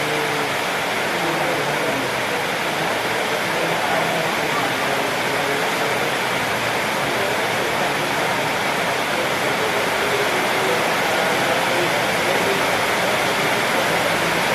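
Steady rushing noise with faint, indistinct chatter of voices underneath.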